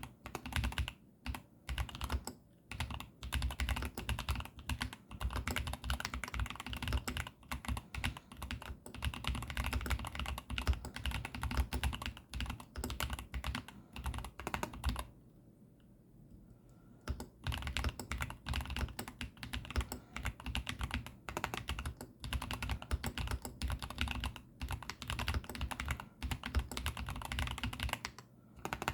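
Typing on a Keychron V10 Pro Max mechanical keyboard with pre-lubed Gateron banana switches: a steady run of clacky keystrokes that pauses for about two seconds just past halfway.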